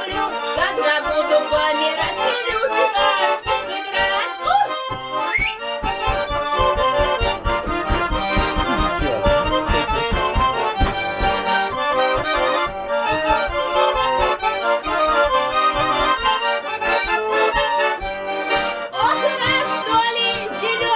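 Russian garmon (button accordion), repaired and tuned by the player, playing an instrumental passage of a gypsy song. The right hand carries the melody in chords over a regular left-hand bass-and-chord beat, which comes in more strongly about five seconds in.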